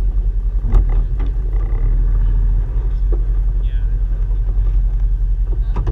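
Off-road vehicle's engine running with a steady low rumble as it crawls slowly over rocky ground, heard from the hood. Sharp knocks come about a second in and again near the end.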